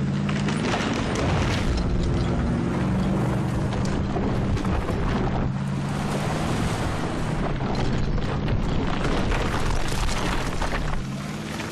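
Ford F-150's 3.5-litre twin-turbo EcoBoost V6 running hard under heavy load as the truck drags logs uphill, with tyres churning through dirt, under a loud dramatic music bed.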